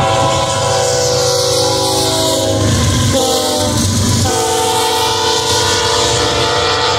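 BNSF freight locomotive's air horn sounding a long blast, a short one and another long one, the closing part of the long-long-short-long grade-crossing signal. The horn drops in pitch as the locomotive passes. Under it are the diesel engines' rumble and the rolling of the double-stack train.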